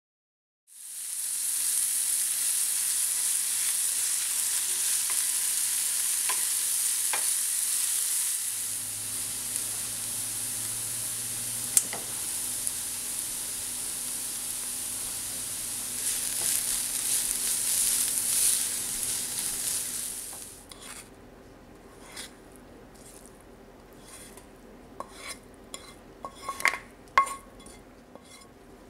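Chopped onion sizzling steadily as it sautés in olive oil in a nonstick frying pan, with an occasional click of the stirring spoon. The sizzle stops about 20 seconds in. Scattered clinks and knocks of a utensil against the cookware follow.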